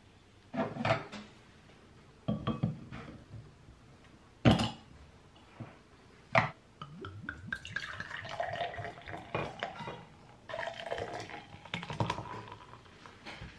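A few sharp knocks and clinks of glass on a counter, then low-alcohol lemon beer poured from a glass bottle into two cut-crystal glasses, one after the other, the first pour rising in pitch as the glass fills.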